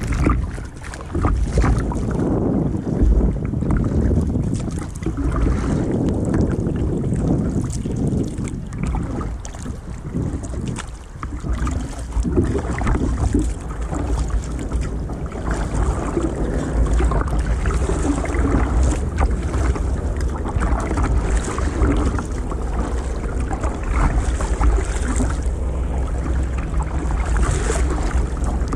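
Sea water splashing and slapping against a plastic sit-on-top kayak riding the chop, with spray coming over the bow at the start. Wind rumbles on the microphone throughout.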